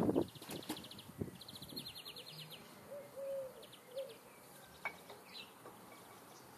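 Faint outdoor farmyard ambience: two rapid high-pitched trills in the first two and a half seconds, a few short low calls a little later, and scattered light clicks from hand work on the engine.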